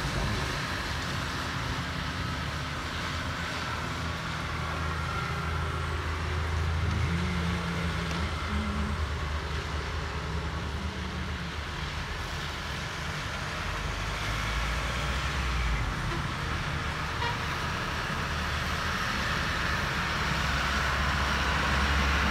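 Street traffic on a wet road: the engines of buses, trucks and motorbikes, with tyres hissing on the wet surface. Near the end a truck's engine grows louder as it passes close by.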